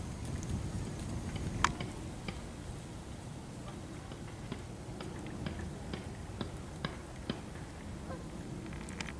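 Footsteps on a gravel path: light ticks and clicks, one sharper click about one and a half seconds in and a run at about two a second later on, over a low rumble of wind on the microphone.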